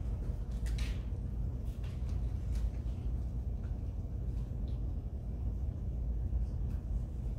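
Quiet indoor room tone: a steady low rumble with a few faint, scattered clicks and rustles from people moving about.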